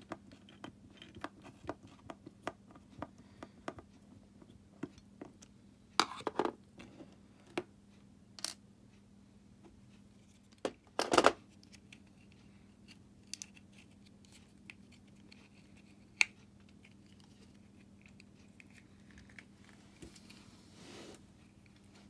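Small plastic clicks and snaps of a car key fob's shell being handled and pried apart by hand, with two louder bursts of clicking about six and eleven seconds in.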